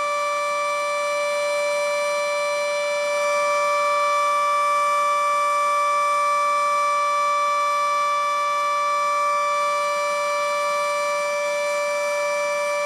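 Federal Sign & Signal Model 7B outdoor warning siren sounding the steady alert signal, a held tone at one unchanging pitch. It grows a little louder a few seconds in and eases back near the end.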